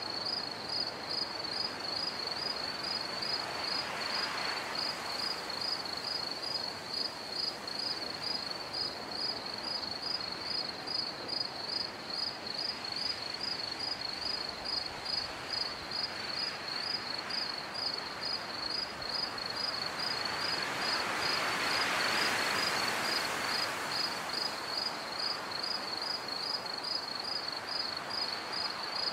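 Crickets chirping in a steady, evenly spaced high pulse, over a soft rushing haze that swells twice, about four seconds in and again near the end: a night-time ambience.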